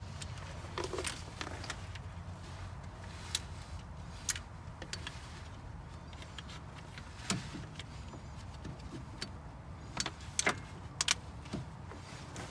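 Scattered light metallic clicks and clinks of hand tools and fasteners as starter motor mounting bolts are worked by hand in a car's engine bay. The clinks come in irregular clusters over a steady low hum.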